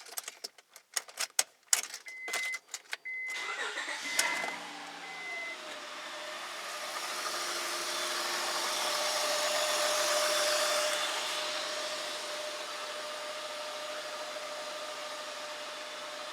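A few sharp clicks and short electronic beeps, then a Honda 3.5-litre V6 cranks and starts about four seconds in. It settles into a steady idle with a held whine, growing louder toward the middle and easing slightly after. It is running fairly smoothly at this point, despite the engine's intermittent misfire.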